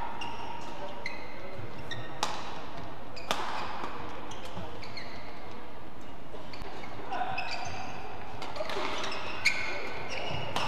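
Badminton shoes squeaking on the court mat in short high chirps, with a few sharp racket strikes on the shuttlecock, the loudest near the end. The sounds echo in a large hall.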